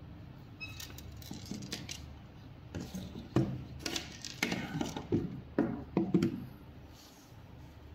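Handling noise of a small electronic module, its cable and a smartphone on a hard tabletop: a few light clicks, then a run of uneven knocks and taps from about three to six seconds in.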